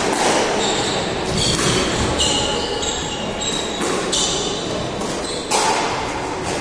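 Squash rally in an enclosed court: the ball cracks off rackets and walls in a series of sharp, echoing hits, with short high squeaks of shoes on the wooden floor between them.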